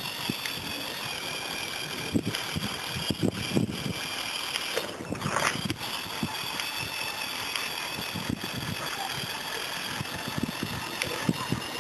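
Small electric motor of a Lego Technic trial truck whining steadily through its gear reduction, with irregular low thumps.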